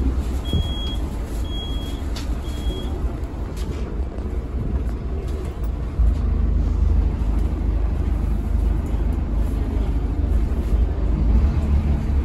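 Low, steady rumble inside a Scania K320HB bus under way, from its Scania DC9 diesel engine and the road, getting louder about halfway through. Three short high beeps about a second apart sound in the first three seconds.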